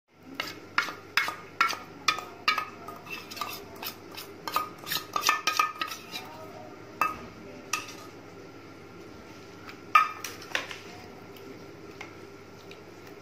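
A metal spoon clinking and scraping against a stainless-steel bowl as thick spice marinade is scooped out. Quick, irregular taps for the first six seconds or so, then fewer, with one louder clink about ten seconds in.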